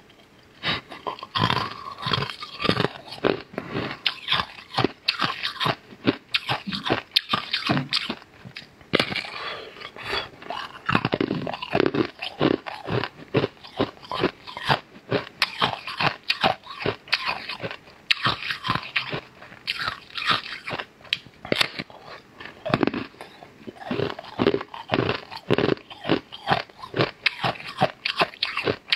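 Close-miked eating sounds: a person biting and chewing a large star-shaped sheet of food, a dense, uneven run of sharp clicky bites, smacks and chews with no pauses of any length.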